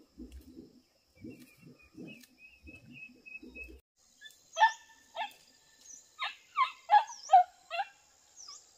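Animal calls: a run of low, short pulses, then, after an abrupt change about four seconds in, about eight loud, short, high calls, each falling in pitch.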